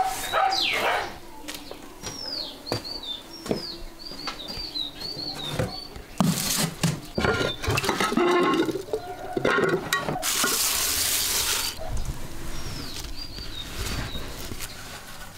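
A small bird chirping in short falling notes, over and over, through the first half. Then knocks and clatter as the lid of a glazed ceramic pickling jar is handled, and a loud hiss lasting over a second; the chirping comes back near the end.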